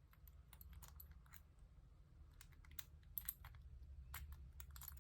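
Faint, irregular small clicks and ticks of a lock pick working the pins inside a lock.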